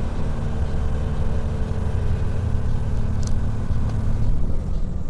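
Truck diesel engine heard from the cab, howling at high revs, around 2,200–2,300 rpm, with the engine brake on, after the gearbox has dropped a gear as the brake pedal was touched; the air compressor runs with it. A steady tone in the drone stops about four seconds in. The driver takes this as the engine brake working wrongly on its second stage.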